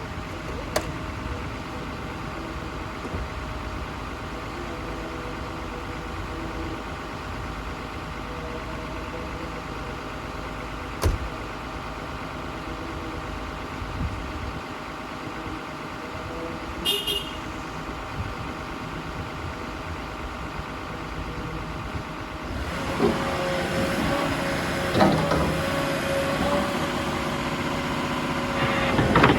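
Komatsu PC210 crawler excavator's diesel engine running steadily, with a few short knocks. About 22 seconds in it gets louder and busier.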